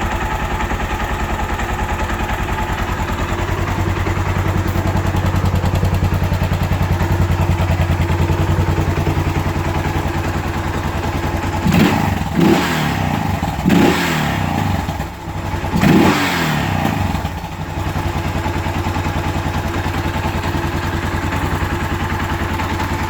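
Freshly rebuilt Suzuki DR650's single-cylinder four-stroke engine idling steadily and running well. About halfway through it is revved three times in quick succession, then settles back to idle.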